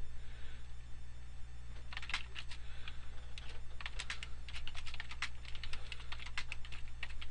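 Typing on a computer keyboard: short bunches of quick key clicks as commands are entered, over a steady low hum.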